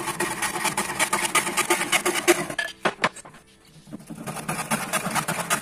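Hand saw cutting through a wooden batten with fast back-and-forth strokes. The sawing stops for about a second and a half just before halfway, then starts again.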